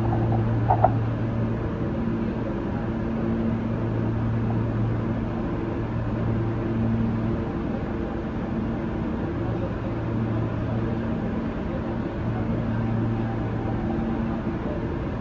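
Subway train standing at the terminal platform, its ventilation and auxiliary equipment running with a steady low hum that drops away briefly every few seconds.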